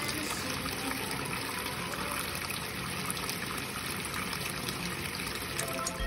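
Top-loading washing machine filling: a steady stream of water pours into the drum onto sudsy clothes.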